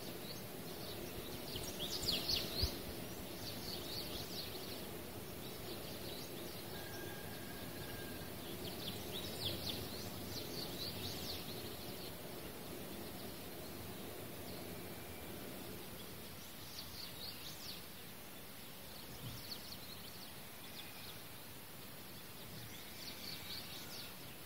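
Steady low background noise with small birds chirping faintly in short runs of quick high notes every few seconds.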